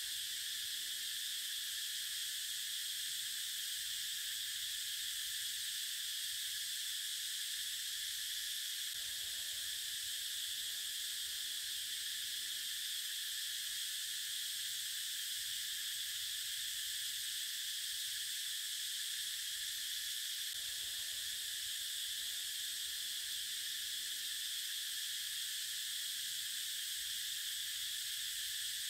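Steady high-pitched chorus of insects, several constant pitches held without a break.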